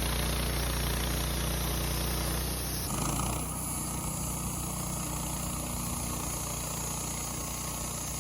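Woodmizer LT15 sawmill running steadily; the sound changes abruptly about three seconds in.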